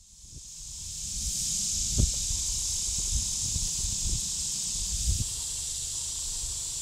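Open-field ambience: a steady high-pitched hiss with a low wind rumble on the microphone. Several dull thumps come through it, the loudest about two seconds in.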